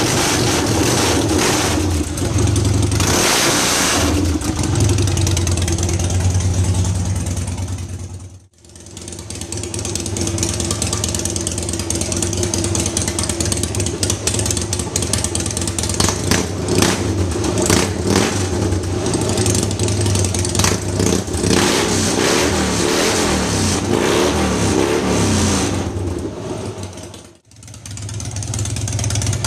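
Harley-Davidson Softail Cross Bones V-twin running loud through Supertrapp X pipes with the baffles and end caps removed, idling and being revved. The sound drops out abruptly twice, about eight seconds in and near the end.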